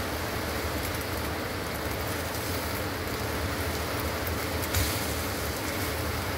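Heavy rain pouring down in a steady hiss, mixed with eggs frying in a pan. A short knock about five seconds in.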